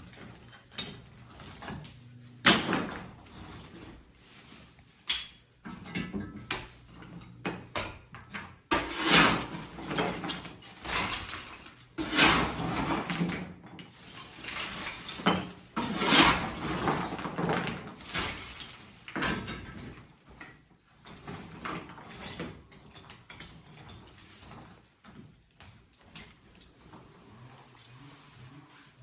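Demolition of ceiling and plaster by hand: irregular knocks, scraping and clattering debris, with the busiest stretch in the first two-thirds and sparser knocks after that.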